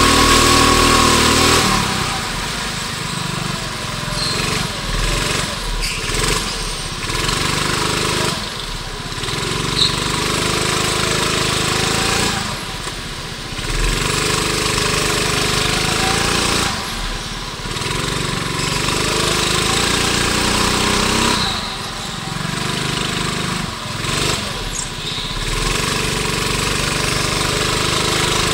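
Go-kart engine heard from on board during a racing lap, revving up on the straights and dropping off each time the throttle is lifted for a corner, several times over.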